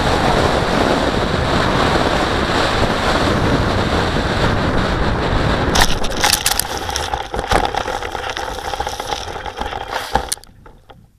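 Airflow rushing over the onboard camera of a Valenta Salto H101 model glider in flight. About six seconds in the glider touches down in long grass and skids through it with a run of scrapes and knocks, stopping near the end.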